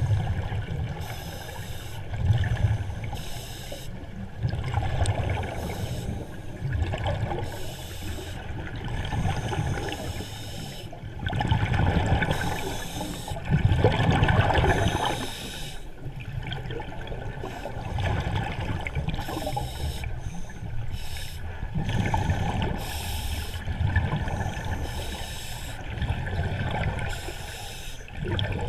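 Scuba breathing recorded underwater: regulator breaths and gurgling bursts of exhaled bubbles, repeating about every two seconds.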